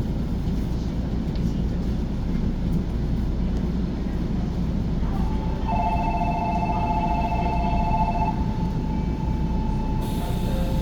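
Electric commuter train running at speed, heard from inside the car as a steady low rumble of wheels on track. About six seconds in, a rapidly pulsing ringing tone of several pitches sounds for about two and a half seconds.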